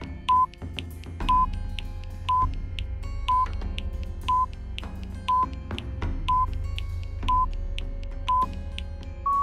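Quiz countdown timer beeping, one short beep each second as the count runs down, over soft background music. A longer beep starts right at the end as the timer runs out.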